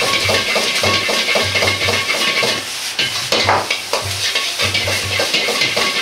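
Fried rice sizzling in a hot wok over a high gas flame while a metal ladle stirs, presses and scrapes it and the wok is tossed, giving a quick, uneven run of knocks and scrapes over the steady sizzle.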